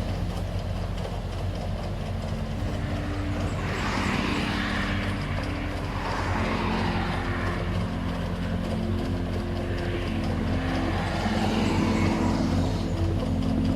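Paddy combine harvester engine running steadily, a continuous low hum.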